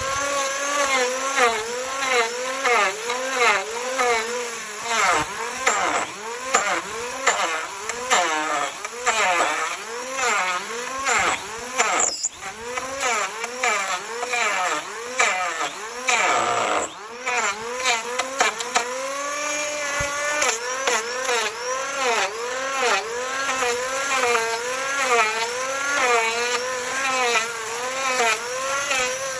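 Handheld power carving tool working into wood, its motor whine dipping in pitch and recovering again and again, about twice a second, as it bites and lifts off.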